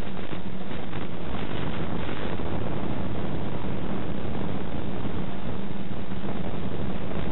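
DJI E300 2212 motors and 9x4 propellers of a quadcopter droning steadily with a constant hum, mixed with wind rushing over the onboard microphone, heard through the FPV video link. A few crackles of radio static come in the first couple of seconds as the video signal breaks up.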